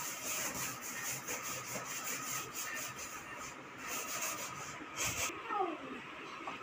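Rough rubbing and rustling of fabric being handled, in quick uneven strokes, stopping suddenly about five seconds in.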